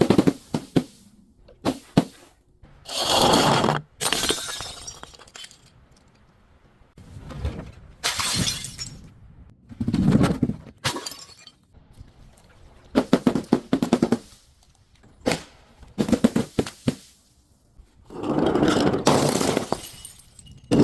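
Glass bottles and other crunchy objects breaking and being crushed. The sound comes as a series of crackling, cracking bursts, about a dozen of them, with short pauses between.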